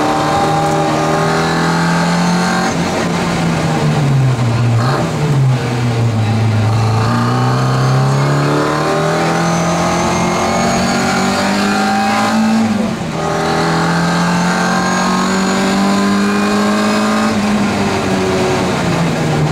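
Classic Mini Cooper S rally car's A-series four-cylinder engine, heard from inside the cabin, revving hard through the gears at stage speed. The revs drop about five seconds in and climb steadily for several seconds. They dip briefly just after the middle at a gear change, hold high, and fall again near the end.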